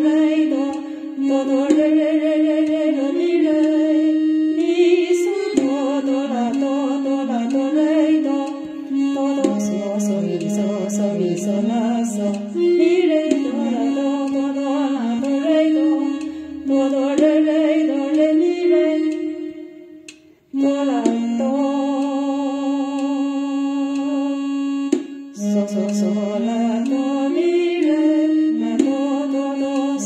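A woman singing the melody of a slow Chinese pop ballad, holding notes with vibrato, with a short pause about twenty seconds in.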